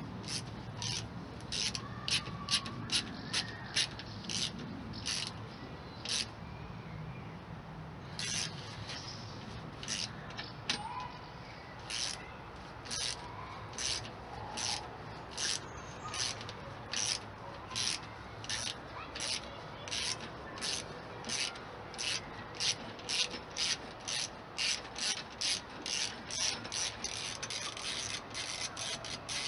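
Ratchet wrench worked in short strokes, its pawl clicking in a quick burst on each back-swing, about one to two bursts a second with a short pause about a quarter of the way in, as bolts holding the passenger footpegs are undone.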